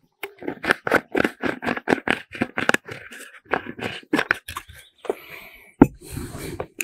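A quick run of scratchy, scraping handling noises from the balsamic vinegar bottle, then a single sharp knock about six seconds in as the glass bottle is set down on the wooden bench, followed by brief rustling.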